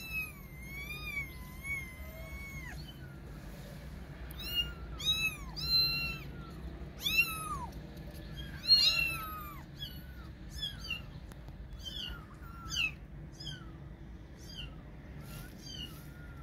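Kitten mewing over and over in thin, high calls that rise and fall: one long wavering call at the start, then a string of short mews that come closer together after about ten seconds.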